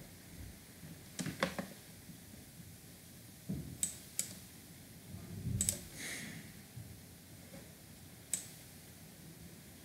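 Scattered clicks of a computer mouse, about six sharp clicks spaced irregularly, with a couple of soft thumps, over a low steady room background.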